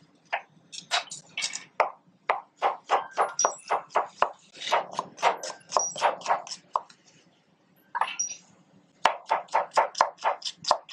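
Kitchen knife finely chopping an onion on a chopping board: quick, even strokes about four to five a second, pausing for about two seconds a little past the middle, then resuming.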